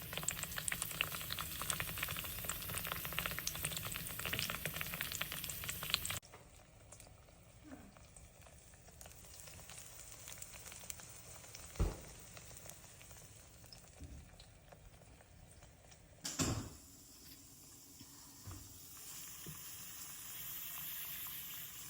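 Plantain slices frying in hot oil, sizzling and crackling. The sizzle drops suddenly to a much quieter level about six seconds in, with one sharp knock near the middle, and grows louder again from about sixteen seconds in.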